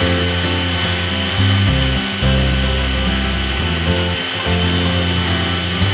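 Cordless drill spinning a wire brush against the steel blade of an old framing square: a steady motor whine with wire scrubbing on metal as rust is stripped off. Background music with a bass line plays underneath.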